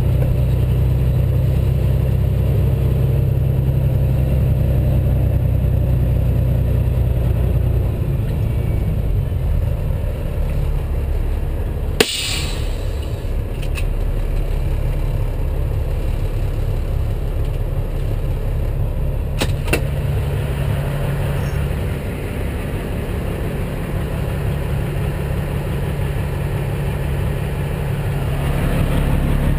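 Peterbilt 379 big-rig diesel engine heard from inside the cab, running steadily. Its note drops back about eight seconds in and rises again near the end. One sharp, loud click comes about twelve seconds in and a fainter one around twenty seconds.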